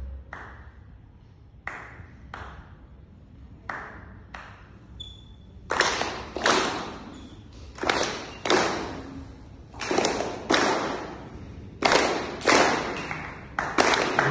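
Hand claps in a steady two-beat rhythm, a pair about every two seconds, each clap ringing on in the hall's echo. The claps become much louder and fuller about six seconds in.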